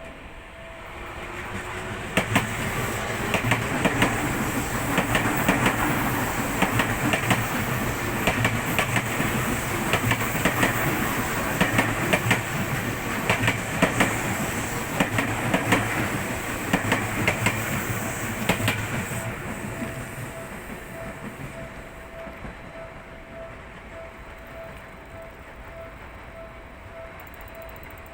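Electric commuter train on the Seibu Ikebukuro Line passing at speed, its wheels clicking over rail joints. The train builds up about a second in, stays loud, then fades away after about 19 seconds. A level-crossing warning bell rings throughout, heard plainly as a repeated ding about twice a second once the train has gone.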